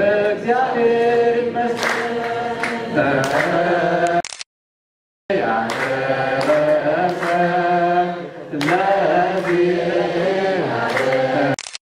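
A choir chanting Ethiopian Orthodox wereb, voices holding and sliding between long notes, with sharp strikes in a slow beat. The sound cuts out completely for about a second in the middle and again near the end.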